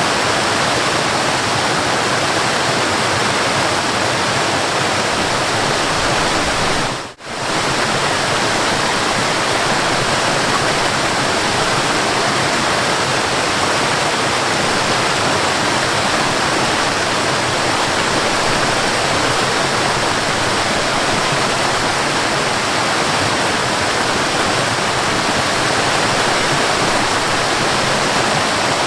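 Waterfall rushing steadily, a dense even roar of falling water that dips out for a moment about seven seconds in, then returns.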